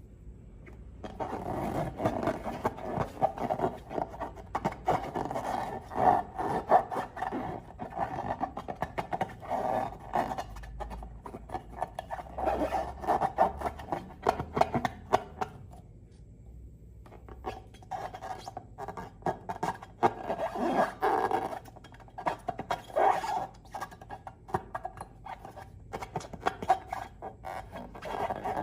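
Slime and long rubber balloons being squeezed and worked by hand: dense, crackly squelching and rubber rubbing that stops for a couple of seconds about halfway through, then resumes.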